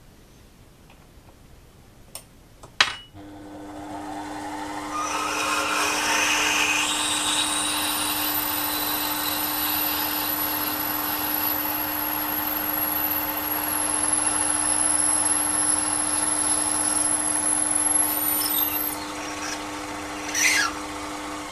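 Small lathe's motor starting about three seconds in and running steadily with a hum. A 4.4 mm drill bit bores into a spinning brass part, adding a cutting hiss and a high whine. Two clicks come before the start and a knock near the end.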